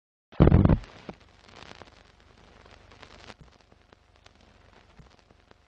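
Old-film countdown leader sound effect: a loud, short low thump, then faint hiss with scattered crackles and pops.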